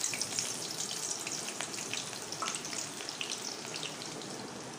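Sliced onions frying in hot ghee in a wok: a steady sizzle with scattered small pops and crackles.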